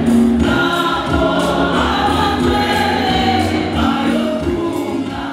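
Gospel song sung by a small group of a man and two women into microphones, amplified through PA speakers, with electric keyboard accompaniment.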